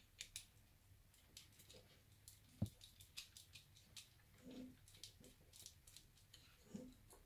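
Faint, scattered clicks and scrapes of a small screwdriver turning terminal screws and of wire ends being pushed into a smart wall switch's terminal block, with one sharper tap a little over two seconds in.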